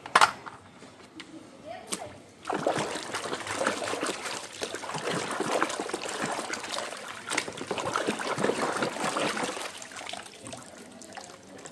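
Water splashing and trickling as toys are washed. A couple of sharp clicks come first, the splashing sets in about two and a half seconds in, and it fades near the end.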